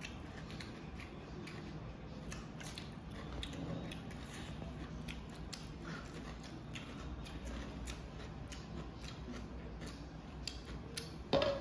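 Close-up eating sounds: chewing with many scattered soft mouth clicks and lip smacks as two people eat by hand. Near the end a brief, louder vocal sound.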